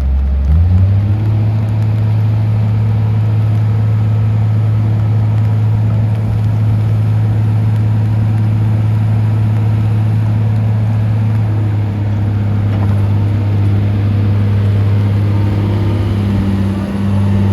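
Komatsu PC240LC-8 excavator's six-cylinder diesel engine running, its speed picking up within the first second and then holding steady.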